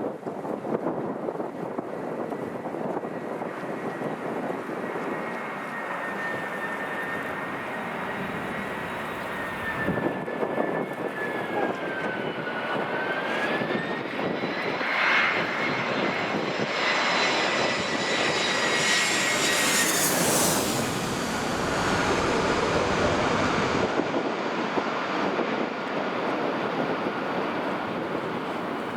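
Jet airliner's engines passing: a whine that bends in pitch and swells, loudest a little past the middle, then dies away. A steady rush of wind noise on the microphone runs underneath.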